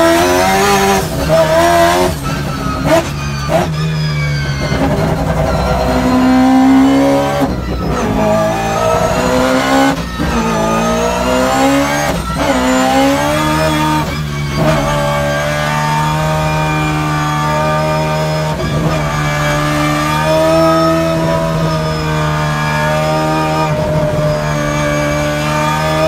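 Rotary engine of a drift car heard from inside the cockpit, revving up and dropping again and again, with sharp breaks between the climbs. After about fifteen seconds it settles into a steadier pitch.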